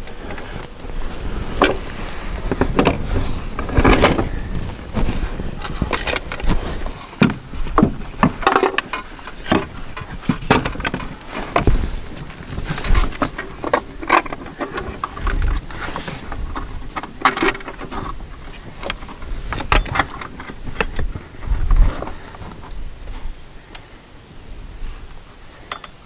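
Irregular metal clinks, clicks and knocks, some with dull thumps, from hand-fitting a 1966 Porsche 912's pedal cluster and its pedal linkages.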